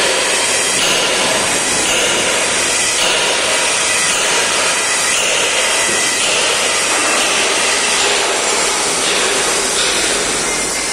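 Submerged arc welding in progress: an automatic welding tractor running a weld, giving a loud, steady hiss without a break.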